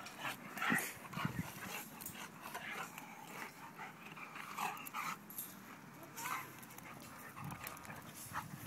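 A Rottweiler and a golden retriever play-fighting, giving short scattered growls and whines.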